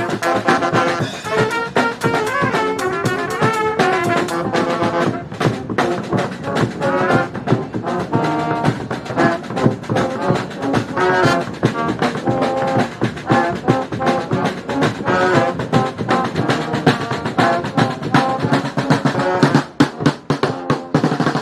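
Brass band playing: trumpets and trombones over a drum beat.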